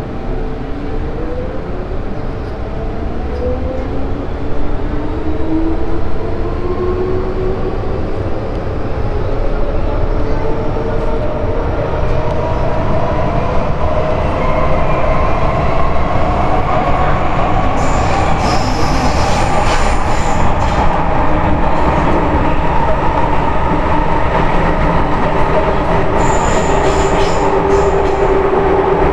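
MTR M-train electric multiple unit heard from inside the carriage as it pulls away and accelerates. Its motor whine climbs in pitch over the first half, then levels into a steady run over a constant rumble. Two brief high-pitched squeals come in the second half.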